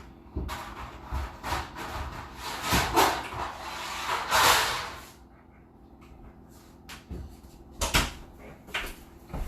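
Rummaging in a kitchen cupboard for a pan: pots and pans clattering and scraping against each other for a few seconds, then, after a short lull, a few sharp knocks as a pan is pulled out and set down.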